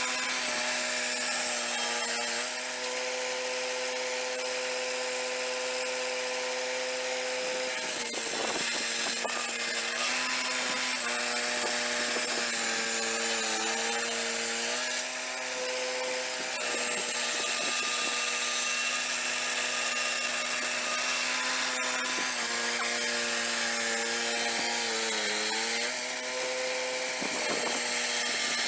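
Turbosawmill swing-blade portable sawmill with its 13-horsepower engine running under load as the circular blade cuts along a log, with a hiss of sawing over the engine note. The engine's pitch sags briefly a few times as the blade takes more load.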